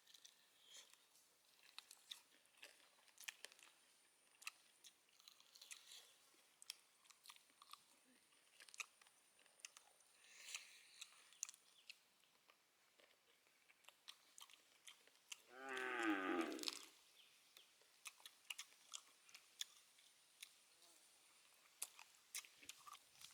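Irregular crunching and chewing of crispy deep-fried chicken feet being eaten, close to the microphone. About two-thirds of the way through, one drawn-out call of about a second and a half, bending in pitch, is the loudest sound.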